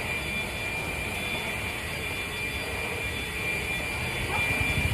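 A steady high whine runs throughout. About four seconds in, a Honda HRR walk-behind lawn mower's engine is started and catches, its low even running getting louder near the end.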